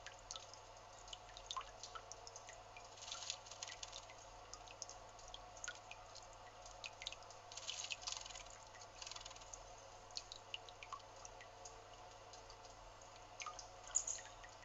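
Male Narcissus flycatcher bathing in a shallow stone bird bath: faint small splashes and drips of water, in short flurries a few seconds apart, the loudest near the end.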